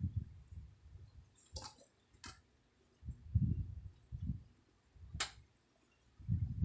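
A sleeping woman snoring: low-pitched snores in short, uneven bursts, with three sharp clicks in between.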